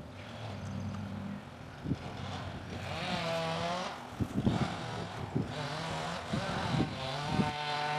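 A motor vehicle's engine running, its pitch rising and falling in waves, with a few brief knocks and rustles of leaves being handled.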